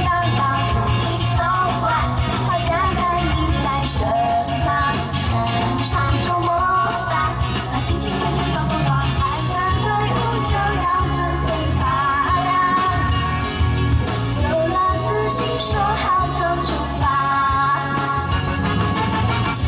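A woman singing a pop song into a microphone over loud amplified backing music with a steady bass beat.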